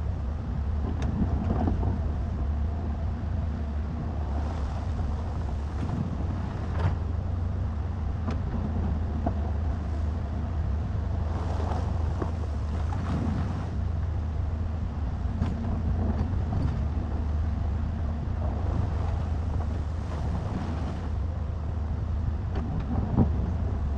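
Excavator's diesel engine running steadily with a low drone, with a few short stretches of rising higher noise and occasional sharp knocks from the machine working.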